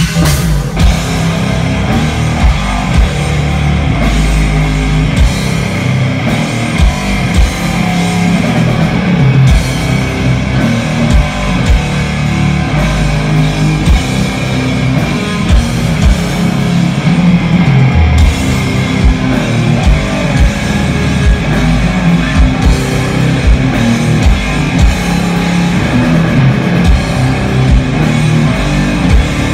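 Death metal band playing live, with heavy distorted electric guitars over a drum kit, loud and continuous.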